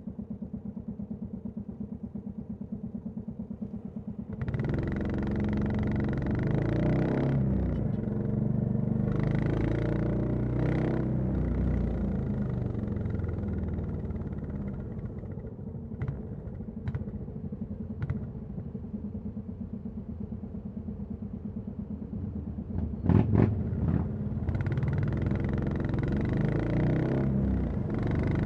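Royal Enfield Classic 350's single-cylinder engine and exhaust. It idles with an even thump at first, then about four seconds in pulls away and runs under throttle. In the middle it settles into a quieter, steady thump broken by a few sharp clicks, and after a couple of loud knocks it picks up again near the end.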